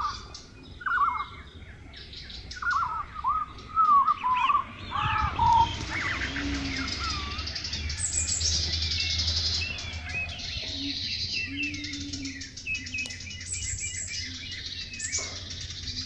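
Songbirds chirping and singing: a mix of short whistled chirps that sweep down in pitch and quick high trills, overlapping one another, over a low steady rumble.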